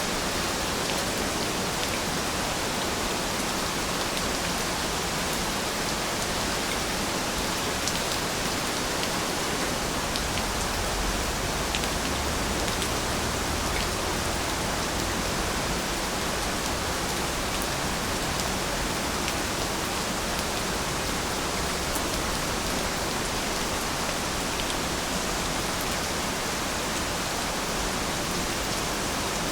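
Steady rainfall, an even hiss of drops with faint scattered individual drop ticks.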